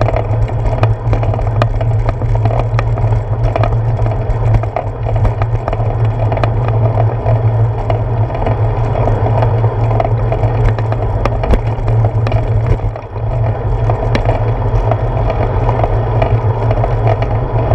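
Bicycle tyres rolling on a concrete sidewalk, picked up through a handlebar-mounted GoPro Hero 4: a steady low rumble and rattle with scattered sharp ticks as the wheels cross the slab joints.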